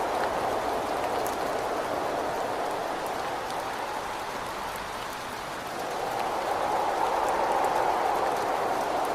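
Steady rain with wind, a rushing hiss that eases off about halfway through and then swells back up in a gust. A few faint drop ticks sound over it.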